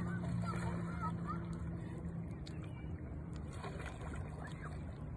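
A distant boat engine drones steadily on the lake and fades out about halfway through, over quiet open-water ambience with faint voices.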